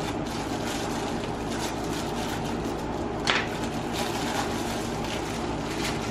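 Clear plastic packaging bag crinkling and rustling as a child's hands tear at it, with short crackles and one sharper crackle about three seconds in, over a steady background noise.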